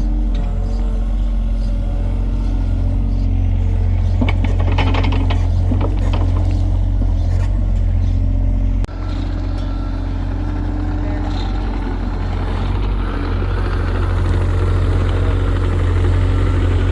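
A heavy engine running steadily with a low, even hum, with some clanking about four to six seconds in. The sound drops out for an instant about nine seconds in and carries on.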